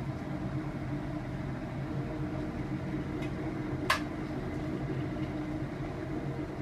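Glass electric kettle heating water toward the boil: a steady rumbling hiss of bubbling water, with a single sharp click about four seconds in.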